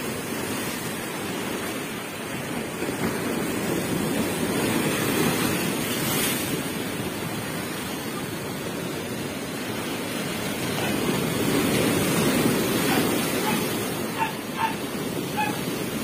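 Heavy storm waves surging ashore and rushing through a yard fence: a steady rush of churning surf that swells louder twice. A dog barks a few times near the end.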